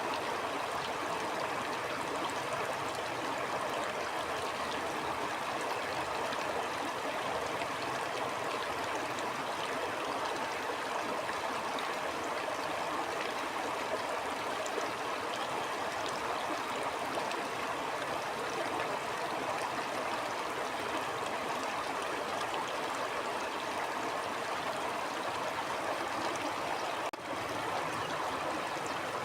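A stream flowing with a steady, continuous rush of water, with one momentary dip in level near the end.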